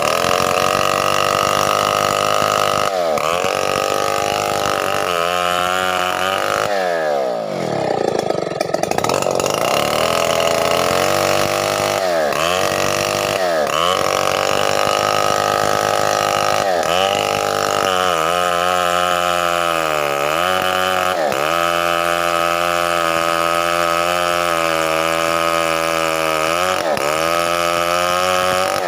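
Stihl 070 two-stroke chainsaw running at high revs. The pitch sags and recovers about eight times, as the engine drops under load and picks up again.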